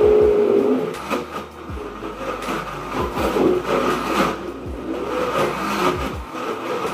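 Ninja Chef high-speed blender running, churning a thick load of frozen banana and pineapple with little liquid while a tamper is pushed down through the jar. The motor note wavers as the load shifts, with occasional sharp knocks.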